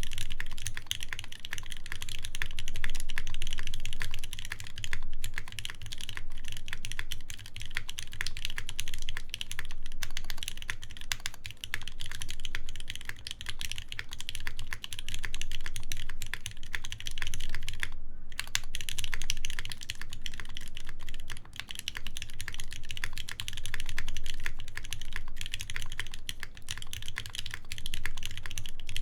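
Steady fast typing on a Keycult 2/65 mechanical keyboard with lubed ZealPC Tealios linear switches in a brass plate and GMK keycaps, giving a dense run of keystrokes. The typing breaks off for a moment about two-thirds of the way through.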